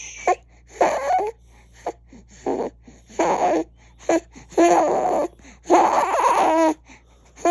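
Infant crying and whimpering in short broken bouts, the longest about a second, with gasping breaths between them.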